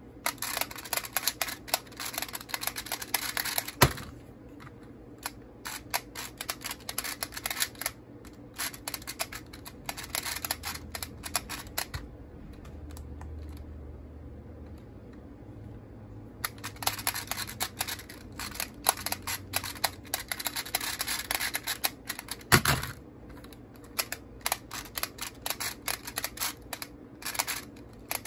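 Rubik's Clock being turned fast by hand: dense runs of small clicks from its dials and pins, with quieter gaps between. Two loud sharp knocks stand out, about four seconds in and about two-thirds of the way through.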